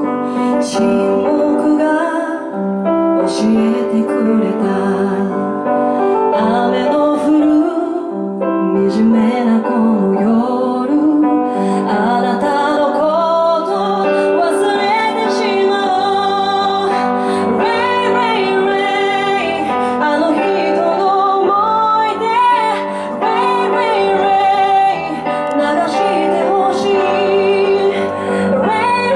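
Woman singing a slow song with live piano accompaniment.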